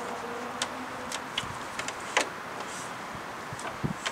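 Small plastic clicks and taps as a wiring connector and its cable are handled and plugged together, about half a dozen scattered clicks over a faint steady hiss.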